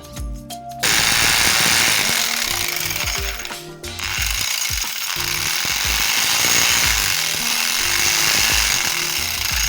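Harsh metalworking noise from a power tool working on steel, over background music with a steady beat. It comes in loudly about a second in, breaks off briefly near the middle, then carries on.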